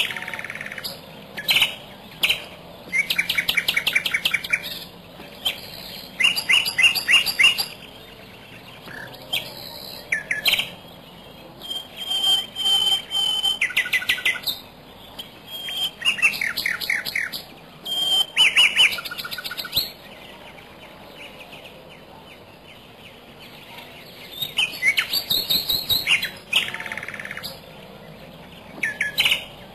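Bird calls: repeated bouts of rapid, chattering trills a few seconds apart, with one held whistle about twelve seconds in.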